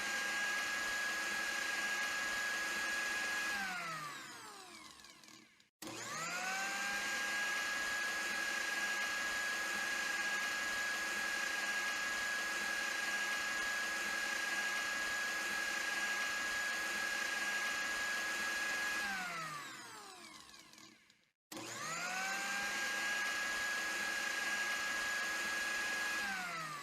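Electric blender motor whining steadily at full speed, then winding down as it is switched off, three runs in all. It winds down about four seconds in; after a short gap it spins up quickly again, runs steadily for about thirteen seconds and winds down; then it starts once more and winds down near the end.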